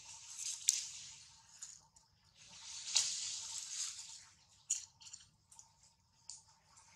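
Newborn macaque suckling hard at its mother's nipple: wet sucking and smacking sounds with sharp clicks, swelling louder near the start and again about three seconds in.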